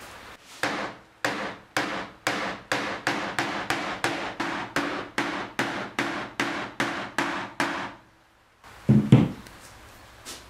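Wooden mallet tapping through cloth onto leaves and flowers on a hard board, pounding out their colour to make a print. It is a run of about twenty sharp knocks, roughly three a second, then after a short pause two heavier, duller thumps.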